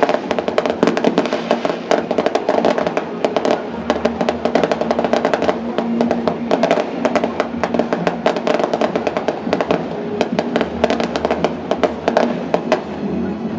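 Fireworks going off in rapid succession, a dense run of crackles and bangs that thins out near the end, with music playing underneath.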